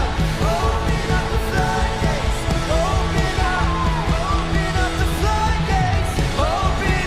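Live worship band playing, with voices singing in long gliding, wordless lines over a steady full-band accompaniment.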